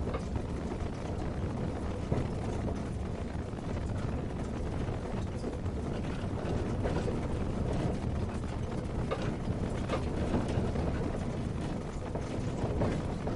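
Car driving over a rough unpaved road, heard from inside the cabin: a steady low rumble of tyres and engine with scattered rattles and clicks.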